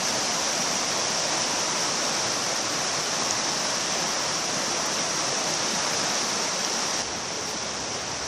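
River water rushing past: a steady, even noise of fast-flowing water that drops slightly in level about seven seconds in.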